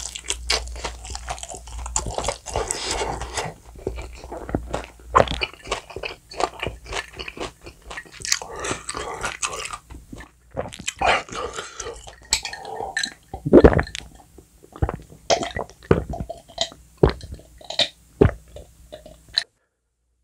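Close-miked chewing of sauce-coated bone-in fried chicken: wet crunching, clicks and smacks of the mouth, thinning out after about ten seconds to scattered single smacks. The sound cuts off abruptly near the end.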